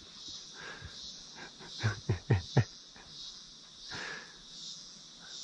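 Goats giving short, sharp calls, a quick cluster of about four about two seconds in and fainter ones around it, over a steady high buzz of insects.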